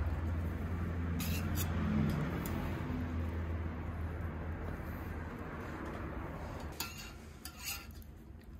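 A low steady rumble that fades out about five seconds in, with a few light metal clicks against the griddle plate, the last of them near the end.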